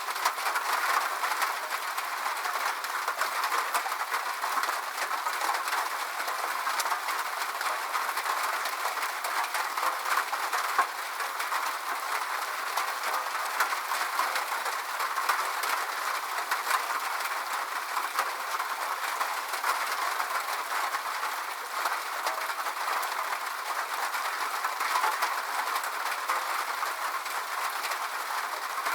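Steady rain, a dense unbroken patter of many small drops ticking.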